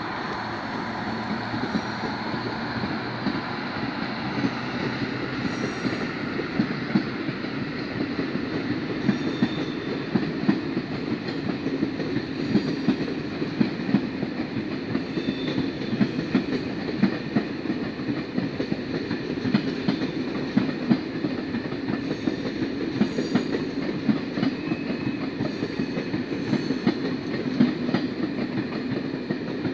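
A Corail passenger train passing, its coaches rolling by with a steady rumble and wheels clicking rapidly over the rail joints.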